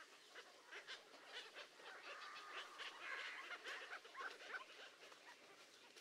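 Faint chorus of many birds chirping and calling over one another, busiest in the middle.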